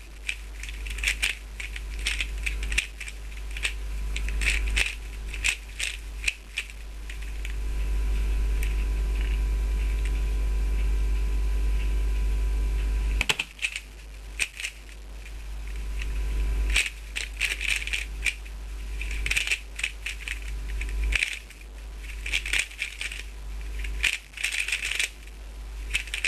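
Dayan Gu Hong 3x3 speedcube being turned fast, its plastic layers clicking and rattling in quick runs of turns. The turning stops for about six seconds near the middle, then starts again and runs in bursts: the pause before the solve, then the solve itself.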